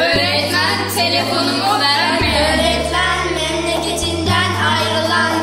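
Background music: a song with a singing voice over held bass notes that change every second or so.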